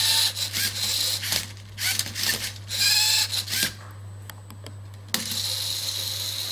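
LEGO Mindstorms electric motors of a MindCuber robot whirring and clicking in short bursts as the arm and turntable work the Rubik's Cube through its last moves, with rising motor whines near three seconds. About five seconds in a motor starts a steady run with a high whine.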